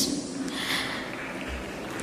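A pause in a speech: a faint breath by the speaker into the microphone, heard over the room's background.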